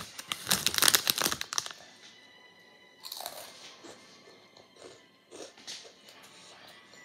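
Crunching of crispy hot fries snack, loud and dense for about a second and a half near the start, then quieter, scattered crunches of chewing.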